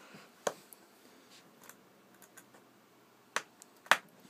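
Small screwdriver clicking and tapping against a mobile phone's plastic casing while its screws are worked out: a sharp click about half a second in, faint small ticks, then two louder clicks close together near the end.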